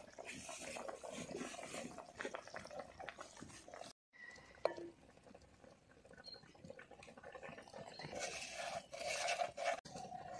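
Fish curry bubbling at a boil in an iron kadai. Then, after a cut, gram flour is tipped from a plastic jar into a steel bowl, with a single sharp tap just after the cut.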